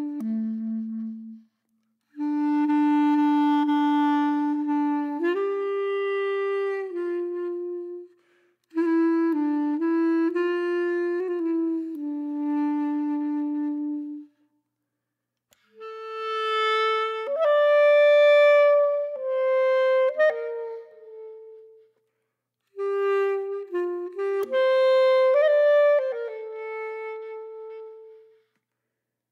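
Background music: a slow solo melody on a wind instrument, one note at a time, played in phrases several seconds long that break off into about a second of silence between them.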